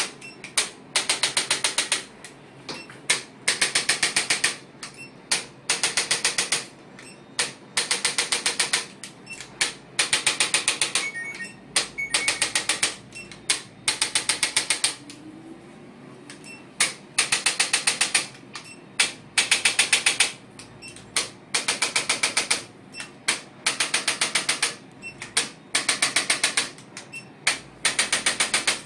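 Handheld electric chiropractic adjusting instrument firing rapid clicking impulses in short bursts, one burst every second or two, during a knee adjustment.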